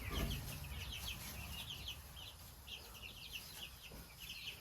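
Chickens in a coop making many short, high-pitched calls, several a second.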